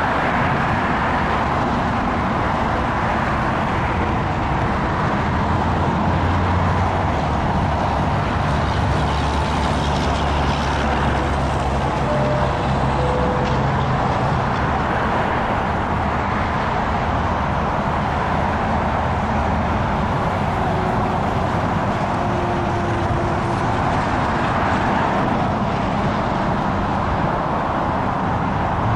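Steady, continuous engine and traffic noise, with a deeper hum for a stretch in the first half.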